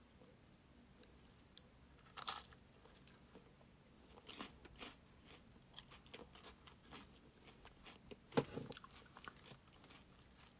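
A Super Cone ice cream's wafer cone being bitten and chewed: one sharp crunching bite about two seconds in, then a run of smaller crunches as it is chewed.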